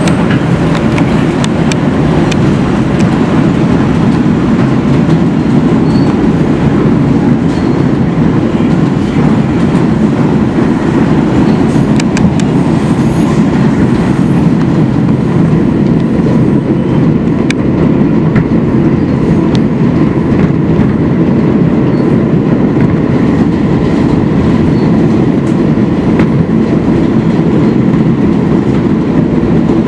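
NYC Subway N train running along the elevated Astoria Line, heard from inside the car: a loud, steady rumble of wheels on rail with a few scattered clicks.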